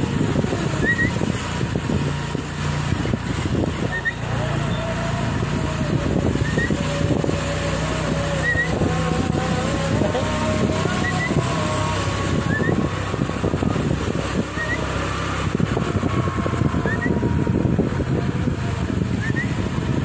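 Motor scooter running while being ridden slowly, its engine pitch wandering up and down with the throttle, with wind rushing past the microphone. Short, faint rising chirps repeat about every second and a half.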